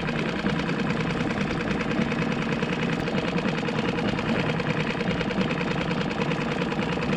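Small outboard motor of a one-person skiff running steadily at low, even revs.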